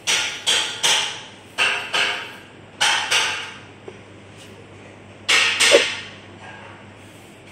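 Sheet-metal clanks and knocks, mostly in quick pairs and each ringing briefly, from the stainless-steel hopper and drum of an insect-drying machine being handled. A low steady hum runs underneath.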